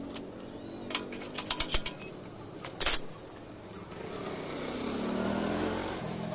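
Metal hand tools clinking: a quick run of ringing clinks about a second in and a louder clank near the middle. A vehicle engine swells and fades in the second half.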